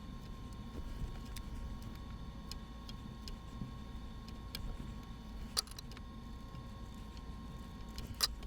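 Scissors snipping into a fabric seam allowance: sparse, irregular small clicks, the two loudest about five and a half and eight seconds in, over a steady low hum.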